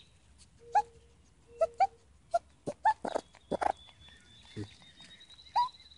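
Baby raccoon kit chirping: a string of short, high calls, each rising in pitch, with a few sharp clicks between them.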